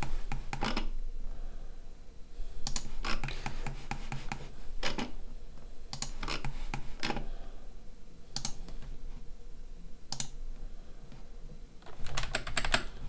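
Computer keyboard and mouse clicking in short, scattered clusters every second or two, over a low steady hum.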